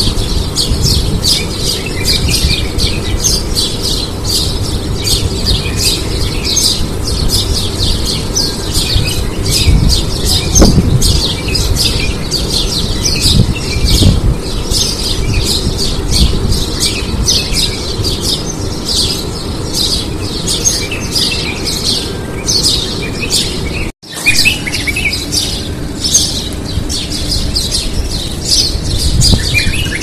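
A dense morning chorus of many birds chirping and squawking without pause, quick high calls overlapping over a low rumble. The sound cuts out for an instant about three-quarters of the way through.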